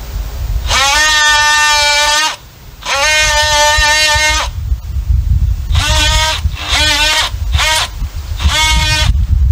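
Cordless oscillating multi-tool plunge-cutting a notch into a wooden 4x4 post, giving a high buzz that rises in pitch as the trigger is pulled. It runs in six bursts: two long ones, then four short ones. Wind rumbles on the microphone underneath.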